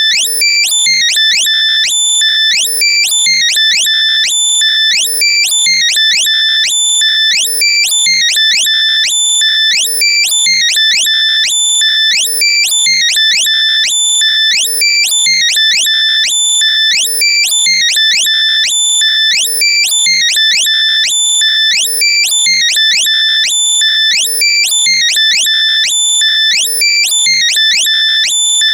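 Loud, heavily compressed synthesized tone track: rapid high-pitched electronic beeps and quick sliding chirps repeating in an unbroken pattern, a locator sound made to be played through lost earbuds so they can be found by ear.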